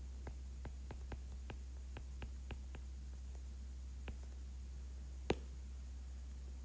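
Stylus tip tapping and clicking on a tablet screen during handwriting: a quick run of light clicks, about four a second, for the first three seconds, then two more, with the sharpest click about five seconds in.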